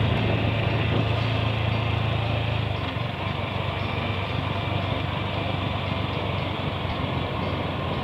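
Yamaha YZF-R15 V3's 155 cc single-cylinder engine running as the motorcycle rides along; its steady low drone drops about three seconds in.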